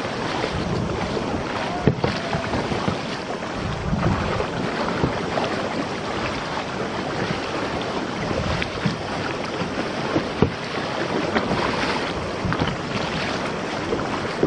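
Kayak paddling on the sea: steady water rushing and sloshing around the hull, with occasional sharp splashes and knocks from the paddles.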